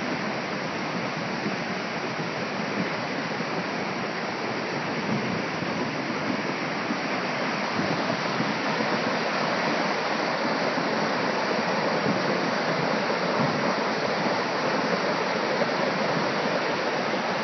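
A river in flood rushing past in a dense, steady wash of water noise that grows a little louder about halfway through.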